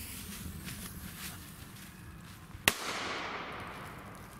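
Silver Pirate firecracker's fuse hissing as it burns, then a single sharp bang about two and a half seconds in, with an echo trailing off after it.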